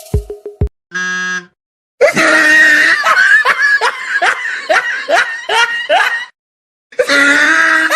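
Sound effects cut one after another: the end of a hip-hop beat, a brief buzzer tone about a second in, then a person's loud, high-pitched laughter in quick falling cries for about four seconds, and after a short gap another burst of laughter near the end.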